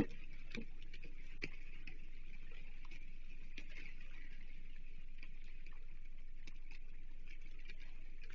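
Scattered light taps and stick rustles from a crow moving about on an osprey nest built of sticks, the firmest tap right at the start, over a steady faint outdoor hiss.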